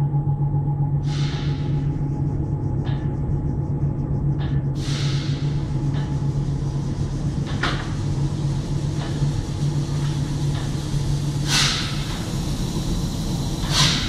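Steady low machine drone with a faint steady tone above it, from an inline magnetron sputtering coating line running in its hall. Several short hissing knocks come through it, the loudest two near the end.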